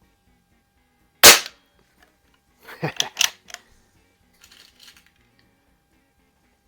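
A single loud shot from a Benjamin AS392 .22 calibre CO2 rifle about a second in. A cluster of shorter clicks and clacks follows about a second and a half later, with a few faint clicks after that.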